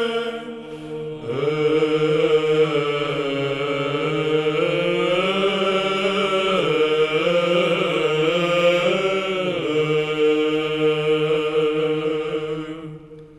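Male choir of Orthodox clergy chanting a slow, drawn-out Byzantine-style hymn line, with a held low note under a moving melody. The singing dips briefly about a second in, then swells back and fades out near the end.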